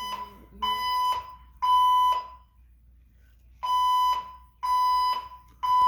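Gentex ceiling and wall speaker strobes sounding a 1000 Hz temporal-three (code 3) fire evacuation tone. Half-second beeps come in groups of three, about one a second, with a pause of about a second and a half between groups.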